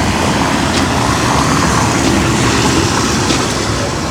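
Steady engine rumble in a wash of wind and water noise, swelling slightly around the middle and easing near the end.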